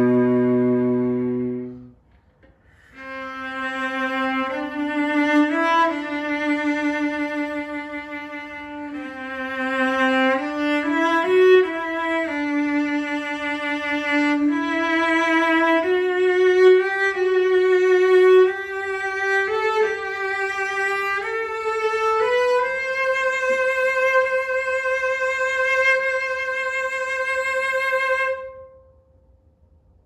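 1928 E.H. Roth (Markneukirchen) cello played with the bow. A low note ends about two seconds in, then after a short pause a slow melody with vibrato climbs higher, ending on a long held note that stops shortly before the end.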